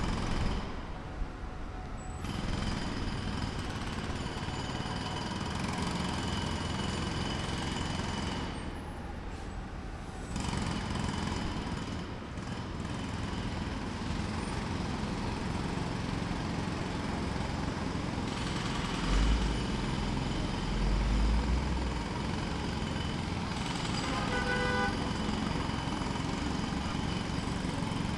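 Pneumatic hammer (jackhammer) breaking concrete: a rapid, continuous hammering that breaks off briefly a few times. A short pitched tone sounds near the end.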